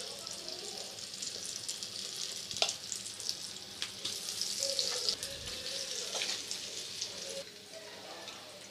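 Batter-coated cauliflower (gobi 65) deep-frying in hot oil in a kadai, a steady sizzle, with a few light clicks as more pieces are spooned in. The sizzle eases a little near the end.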